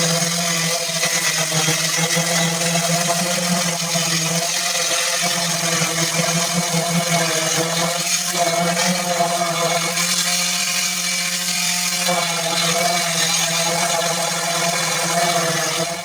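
Power sander running steadily on a car's body panels, taking them down to prepare for primer; the sound cuts off abruptly at the end.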